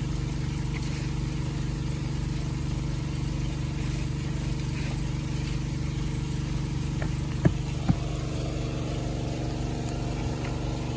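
Small Robin petrol engine driving a water pump, running steadily at constant speed. Two short sharp knocks a little past halfway, about half a second apart.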